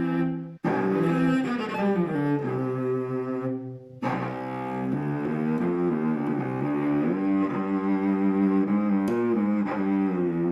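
A William Wade 1893 quarter-size child's cello with Larson strings, bowed in a passage of changing sustained notes, with a short break just under a second in and a brief fade near four seconds.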